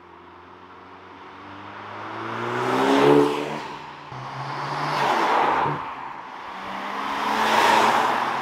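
Cars driving past one after another, three passes swelling and fading; the first engine's note rises as it accelerates by. The last and close pass is a Toyota Supra.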